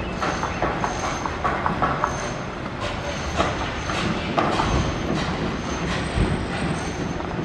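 Construction-site machinery noise: a steady rumble with scattered metallic clanks and rattles and a faint high squeal that comes and goes.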